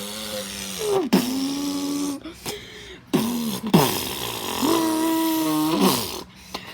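A person beatboxing with a mouth-made vacuum-cleaner noise. A string of hummed, buzzing tones each swoops into a held pitch, with short breaks between them.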